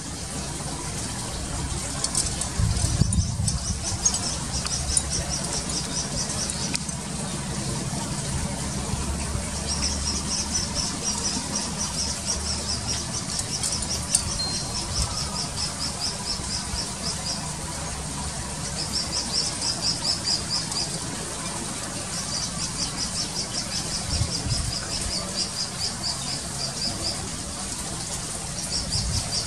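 Malaysian pied fantail fledgling begging for food: bouts of rapid, high, repeated chirps, each bout lasting a few seconds, with short pauses between.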